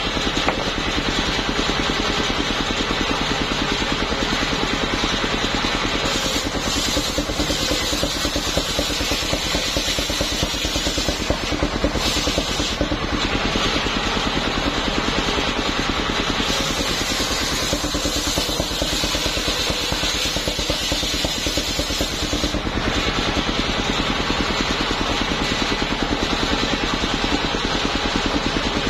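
Engine-driven circular saw of a homemade mobile sawmill running steadily with a fast, even engine beat. From about six seconds in until about twenty-two seconds a harsher hiss rides over it as the blade rips along a plank of waru wood.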